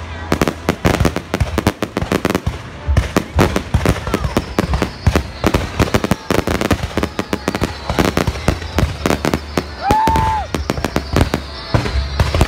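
Fireworks display: a dense, continuous barrage of sharp bangs and crackles from bursting aerial shells, with a brief high tone about ten seconds in.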